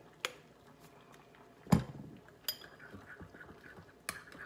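Honey squeezed from a plastic squeeze bottle with soft squelching sounds, a single thump about two seconds in, and a few light clicks of a spoon against a bowl near the end.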